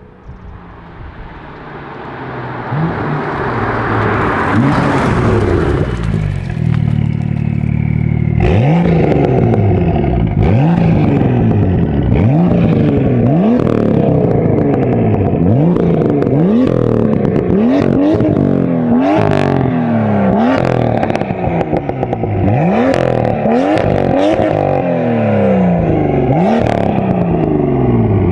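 BMW M2 F87's N55 turbocharged straight-six through a 3.5-inch straight-pipe valve exhaust with the valves open. It idles briefly, then is revved again and again, about once a second, each rev climbing and falling back, with sharp crackles and pops between revs.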